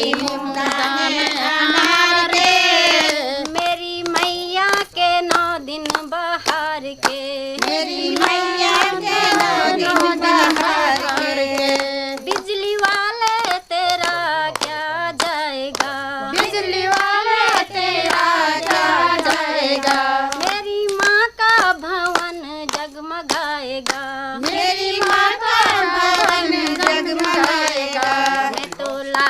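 A woman singing a devotional folk song without instruments, her melody wavering and held on long notes, while hands clap along in a steady beat.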